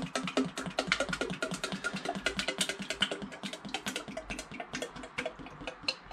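Engine oil pouring from a 20-litre plastic drum into a plastic jug, the drum glugging rapidly as air bubbles back in through the spout.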